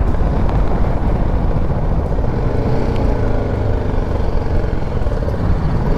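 BMW G310 GS single-cylinder motorcycle engine running while riding, with steady wind and road noise.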